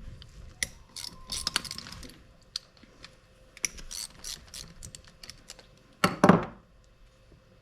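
Hand ratchet clicking in short runs while the bolts of a Yamaha Warrior 350 engine's timing chain tensioner are worked loose. A short, louder sound comes about six seconds in.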